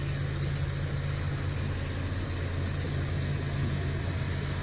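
Diesel engine of a wheeled construction machine running steadily, a low even drone, as the machine drives through dirt.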